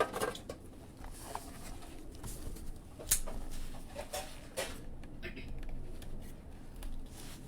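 Cardboard card boxes and packaging being handled on a table: light rustles and taps, with one sharp click about three seconds in and a few small knocks a second later.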